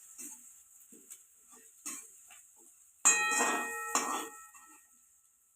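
A metal spoon knocking against a steel cooking pan while stirring: a few light taps, then two loud clangs about a second apart, about three and four seconds in, each leaving the pan ringing.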